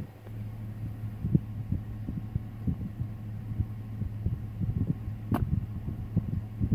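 Steady low hum of an idling vehicle, with irregular low thumps of wind buffeting the microphone and one short sharp crack about five seconds in.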